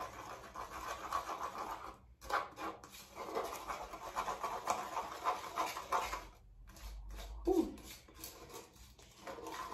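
Hair bleach powder and developer being stirred and scraped around a mixing bowl: rapid scraping that breaks off briefly about two seconds in and becomes sparser in the second half.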